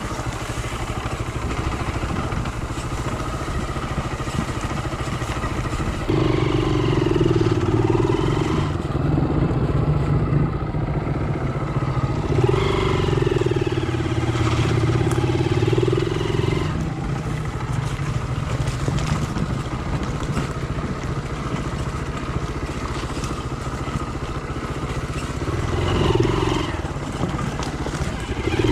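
Motorcycle engine running steadily under way. Its note swells louder and clearer for a few seconds at a time, three times.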